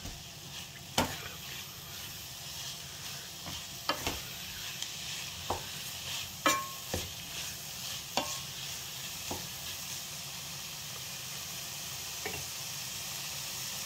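Soy chunks frying in a nonstick pan with a steady sizzle. A wooden spatula stirs them, scraping and knocking against the pan about seven times over the first ten seconds; after that the sizzle goes on alone.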